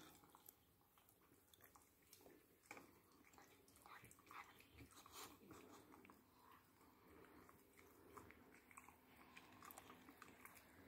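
Faint, soft clicks and rustles of a Boxer puppy gently mouthing and nibbling a hand while its belly and head are rubbed.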